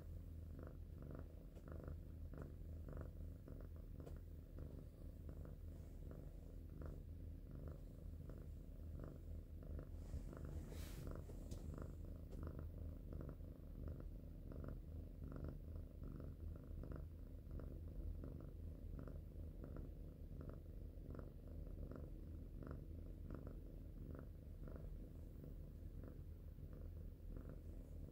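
A tabby cat purring steadily while being stroked, eyes closed and dozing off: a contented purr that swells and fades with each breath, a little over one cycle a second.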